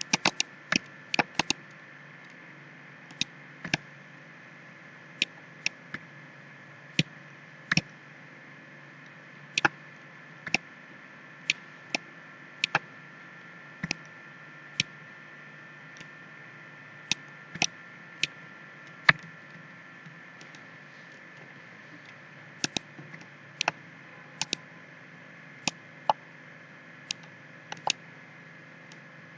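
Computer mouse buttons clicking at irregular intervals, single clicks and quick double clicks, over a steady low hiss and hum of the recording setup.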